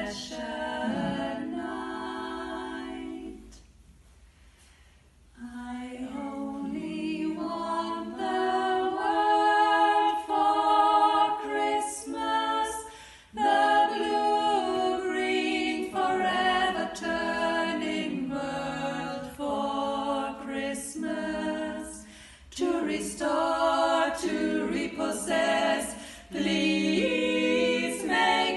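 Four female voices singing a cappella in harmony, with a short pause about four seconds in before they come back in together.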